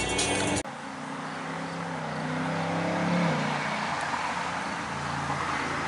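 Music playing inside a moving car cuts off abruptly under a second in. It gives way to the outdoor hum of a passing road vehicle's engine, which rises in pitch and loudness to a peak about three seconds in and then eases off.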